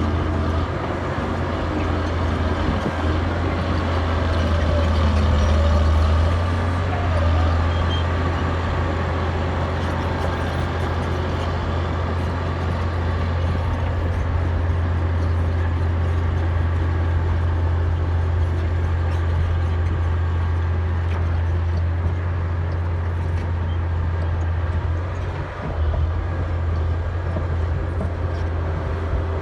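Caterpillar D6D bulldozer's six-cylinder diesel engine running steadily under load while breaking out shale and clay, with a louder surge about four to seven seconds in and a brief dip near the end.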